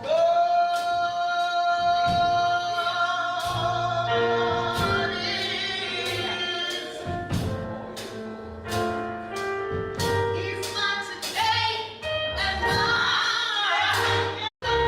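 Gospel music with singing over a steady drum beat; the singer holds one long note at the start, and the sound cuts out for an instant near the end.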